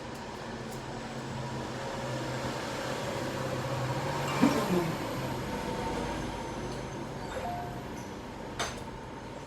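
A passing heavy vehicle rumbling, building to a peak about halfway through and then fading, with a few light clicks near the end.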